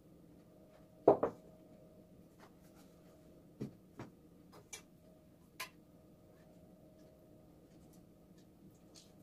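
Knocks and taps of kitchen work at a counter: a sharp double knock about a second in, then four lighter taps and clicks over the next few seconds, over a faint steady hum.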